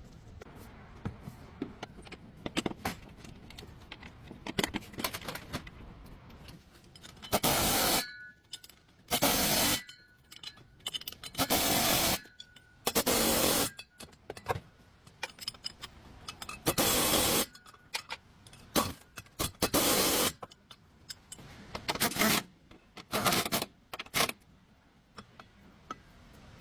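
Hand tools scraping in repeated short strokes, about ten of them from a third of the way in, with small clinks and knocks between.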